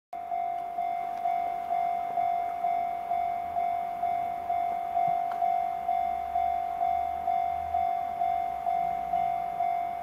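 Japanese level crossing warning bell ringing steadily, about two dings a second, each struck sharply and fading. It signals that the crossing is closed for an approaching train.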